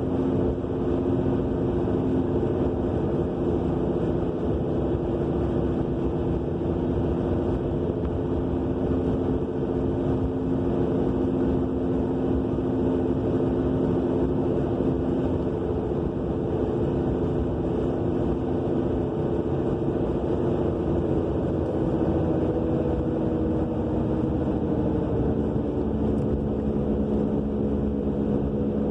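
Steady droning roar with several humming tones, heard inside the cabin of a 2000 Subaru Legacy AWD while driving; the owner hears it from the rear end even with a new wheel bearing, brakes, calipers and rotors. The pitch of the hum shifts about three quarters of the way through.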